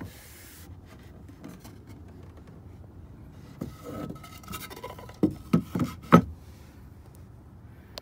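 A wooden 2x4 pushed and rubbed against a metal van wall frame onto the pointed tips of hanger screws, making light scraping and rubbing, then four quick knocks a little after five seconds in as the board is pressed onto the points.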